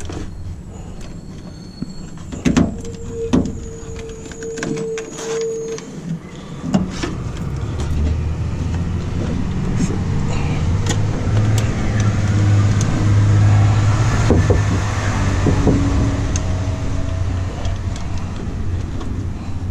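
Crinkling, tapping and rubbing as a sticky sheet of peel-and-seal butyl sound-deadening membrane is handled and pressed onto the inside of a car door. From about seven seconds in, a steady low motor hum rises and holds, louder than the handling.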